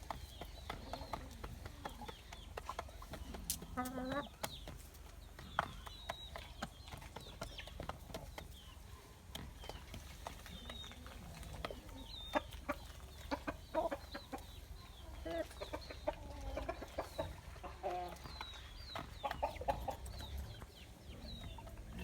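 Domestic chickens clucking on and off, with short high chirps and many scattered small clicks throughout.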